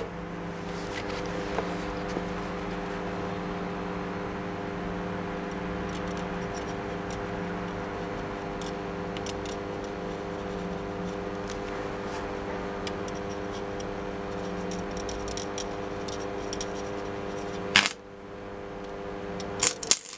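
Stick arc welder humming steadily under load, with the arc crackling, as weld spots are built up on a shotgun action's female part to take up its sideways play. The hum stops with a sharp crack about 18 seconds in, and a couple of loud clicks follow near the end.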